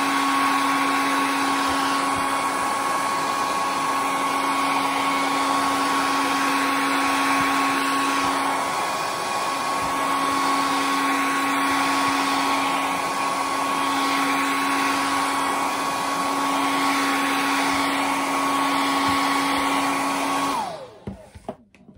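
Handheld hair dryer running steadily, a constant whine over the rush of blown air. It is switched off near the end, its whine falling away as it winds down.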